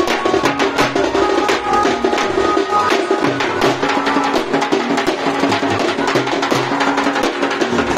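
Loud music of rapid drumming, several strokes a second, over a melody of held notes that step from pitch to pitch.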